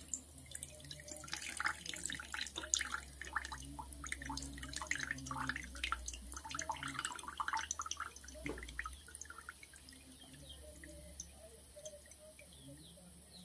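Thin stream of fresh lemon juice pouring from a plastic tray into a ceramic mug, splashing and trickling into the liquid, then thinning to a slower trickle in the last few seconds.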